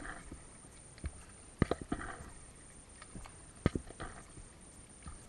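Paddle strokes on an Itiwit x500 inflatable kayak, three in all, about every two seconds. Each brings a sharp knock or two of the paddle against the boat and a brief splash of water.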